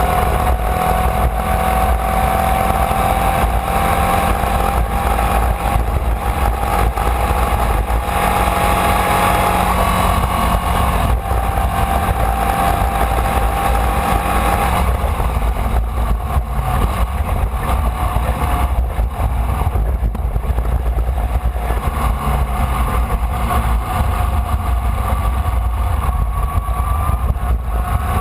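Formula Vee's air-cooled Volkswagen flat-four engine running hard, heard onboard over steady wind and road noise; its pitch climbs slowly through the first half, changes about halfway through, and rises again near the end.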